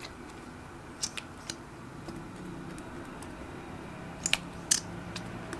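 A few short, sharp clicks and taps as a lip gloss applicator wand is handled and dabbed onto slime, in a cluster about a second in and another, louder one between four and five seconds in. Under them runs a steady low background hum.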